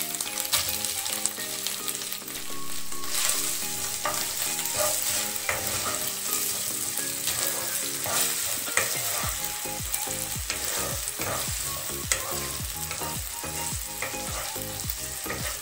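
Chopped tomato sizzling in hot mustard oil in a kadai, with a steady frying hiss, while a wooden spatula stirs and scrapes the pan. The scraping strokes come more often in the second half.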